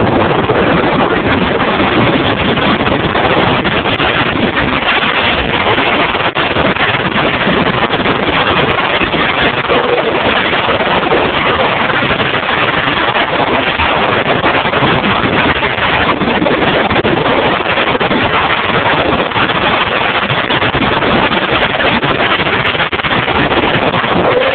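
Steady loud rush of wind buffeting the camera's microphone during a downhill run on a snowy ski slope.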